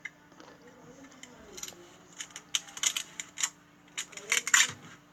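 Slime being squeezed and poked by hand, giving a quick run of sharp clicks and crackly pops that bunch together in the second half.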